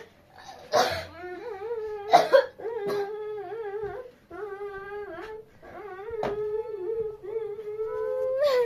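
A person crying in a run of long, wavering wails, each a second or two long, broken by short sharp intakes or noises.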